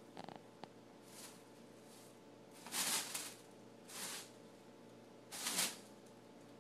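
Shopping bags rustling as a cat plays in them: three bursts of crinkling, the loudest about three seconds in, the others around four and five and a half seconds.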